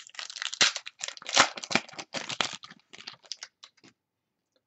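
Trading-card pack wrapper crinkling and rustling as it is torn open and crumpled by hand, thinning to a few light clicks and ticks that stop about four seconds in.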